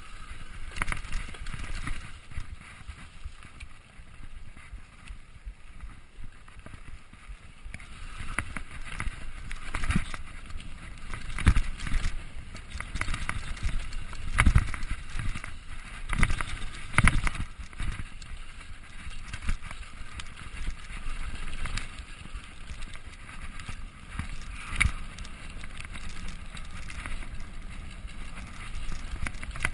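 Mountain bike, ridden without a chain, running fast down a dirt trail: a steady rush of tyres and air with irregular clattering knocks from the bike hitting bumps, the loudest knocks about halfway through.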